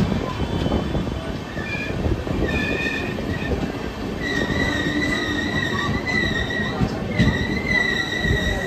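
Passenger train rolling slowly into a station platform: a rumble of wheels on the track under high, steady squealing as it brakes. There are short squeals about two seconds in, then a long unbroken squeal from about four seconds in.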